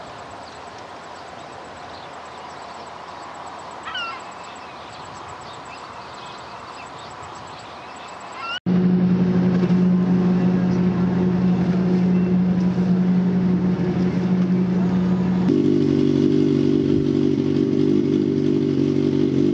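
A motorcycle engine running steadily, starting abruptly about eight and a half seconds in, with its pitch stepping once near the end. Before it, a quiet steady outdoor background with a couple of faint chirps.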